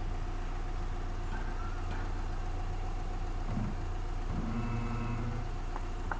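Subaru engine idling steadily with the automatic gearbox in D, with short squeaks and one creak of about a second, a little after four seconds in. This is the creak that the owner says comes only in D, just as the brake pedal begins to be released.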